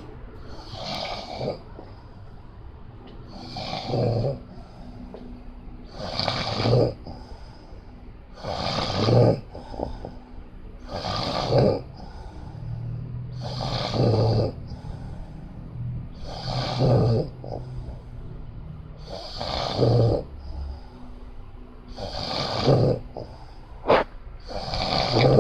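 Loud snoring, a snore about every two and a half seconds, ten in all.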